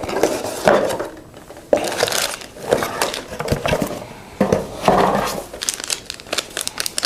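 Irregular crinkling and rustling handling noise, like plastic being handled, with a few short clicks and knocks in between.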